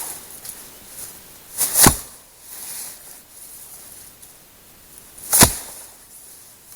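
Firewood being broken up: two sharp cracks about three and a half seconds apart.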